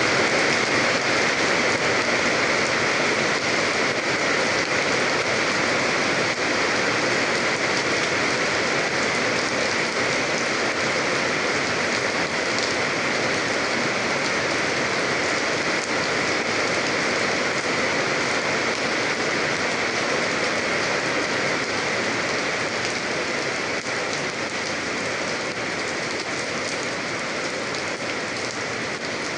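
Steady rain falling, an even hiss of drops that grows slightly softer in the last few seconds.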